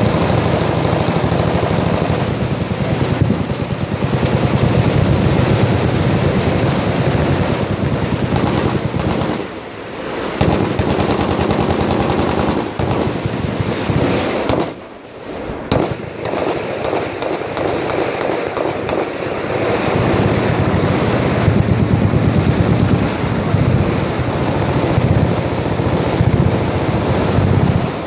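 Many machine guns firing full-auto at once in a dense, continuous barrage, with two short lulls about ten and fifteen seconds in.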